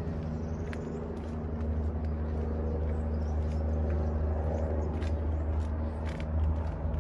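A steady low rumble with a few faint, irregular footsteps as the footbridge is crossed.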